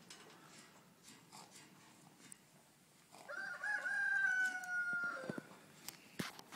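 A rooster crowing once, starting about three seconds in: one long call that holds a slightly falling pitch and drops off at the end.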